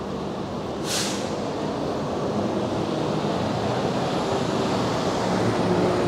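Street traffic: engine hum and tyre noise from vehicles on the road, growing slowly louder, with a short sharp hiss about a second in.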